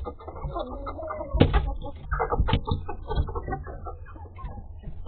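Hens on their roost clucking and squawking as they are handled, mixed with scuffling knocks. The loudest knock comes about a second and a half in.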